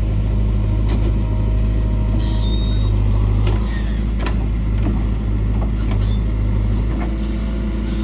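JCB 3DX backhoe loader's diesel engine running steadily, with a few sharp clanks and a brief high squeak about two seconds in.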